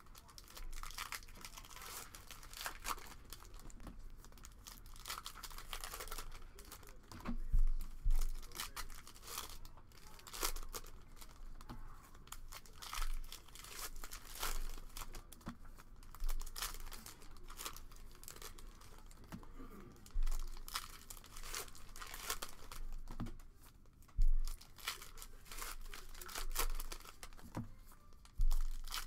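Foil trading-card pack wrappers being torn open and crinkled by hand, a dense run of crackling, with a few dull handling thumps now and then.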